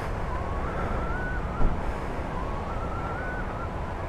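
Steady low rumble of a running motor vehicle, with wind noise. A faint whine climbs in small steps and falls back twice, and there is a single thump about a second and a half in.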